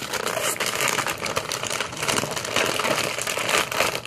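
Clear plastic packaging crinkling continuously as it is handled and pulled open by hand, a dense run of crackles that stops near the end.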